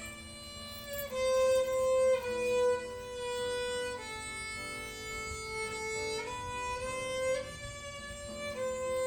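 Background music: a solo violin playing a slow melody of long held notes that step from pitch to pitch.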